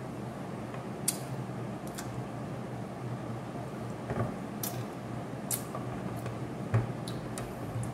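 A steady low room hum with a few scattered small clicks and smacks from a man chewing lemon slices and handling the pieces on a plate.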